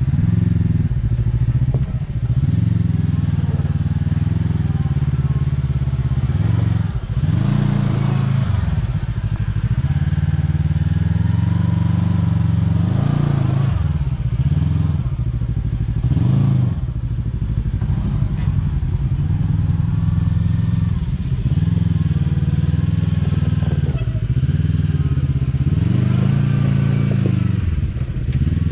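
Kawasaki Teryx KRX 1000's parallel-twin engine working at low speed as the side-by-side crawls up rock ledges, its revs rising and dropping back again and again in uneven surges.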